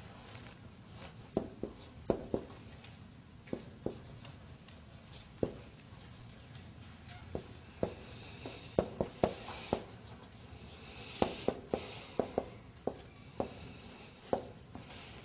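Marker writing on a whiteboard: irregular sharp taps of the tip on the board, with faint scratchy strokes in between.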